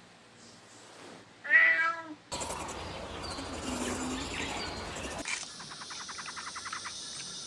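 A cat meowing once, briefly, about one and a half seconds in, followed by quieter background noise with a fast, even ticking near the end.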